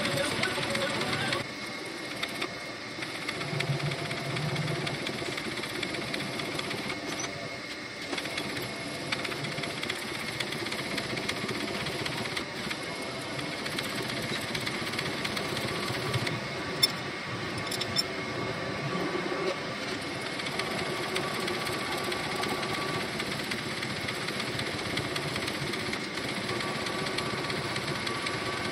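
Vertical slotting machine running, its ram stroking a single-point cutting tool up and down through the teeth of a metal gear to cut the spline flanks, a steady repetitive machine noise. Two sharp clicks sound about two-thirds of the way through.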